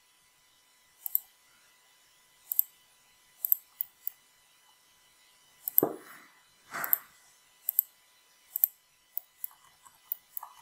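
Computer mouse buttons clicking: a dozen or so short, sharp clicks at irregular intervals as drawing points are picked. There are two duller, fuller sounds about six and seven seconds in.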